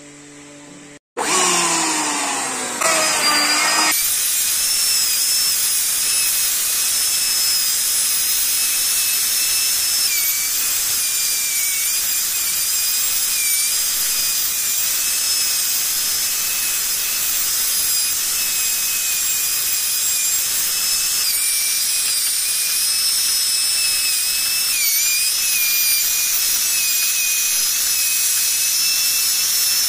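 Handheld electric router running at high speed with a steady high-pitched whine, its bit cutting a carved pattern into a wooden door panel. It starts about a second in, after a brief drop-out.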